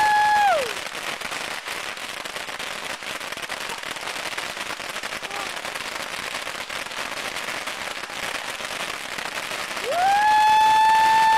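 A barrage of thousands of bottle rockets firing at once: a dense, continuous hiss and crackle of launches and small pops. A loud steady whistle-like tone is sounding at the start and falls away about half a second in, then comes in again about ten seconds in, rising quickly in pitch and holding.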